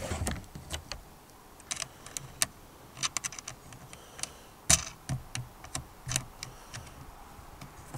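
Scattered light clicks and taps from hard parts and hand tools being handled, irregular and unevenly spaced, with a sharper knock a little under five seconds in.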